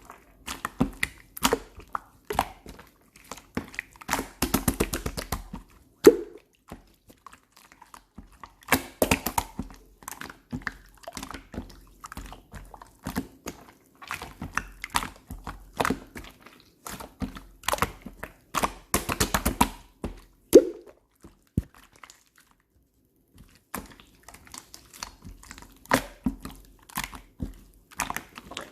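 Light purple slime being squished and pressed by hand: bursts of rapid wet clicks, crackles and small pops, with a short pause a little after the middle.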